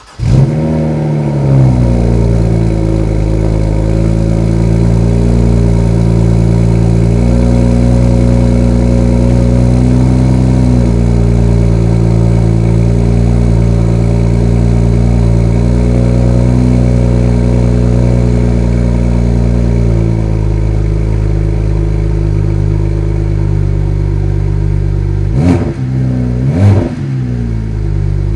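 BMW 1M's twin-turbo inline-six with the stock exhaust starting. It catches with a brief flare, then settles to a steady idle that steps down slightly twice. Near the end the engine is revved twice in quick blips.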